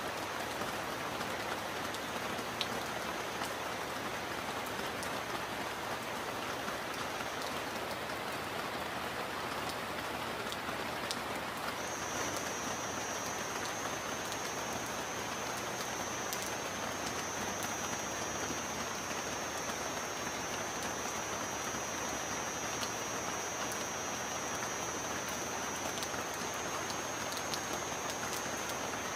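Steady rain falling: an even hiss of rain with faint drop ticks. A thin, steady high-pitched tone runs over it, drops out about a quarter of the way in and comes back about four seconds later.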